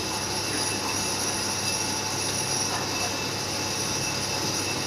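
Steady mechanical hum with a hiss, the constant background drone of the workshop, with no distinct knocks or clicks.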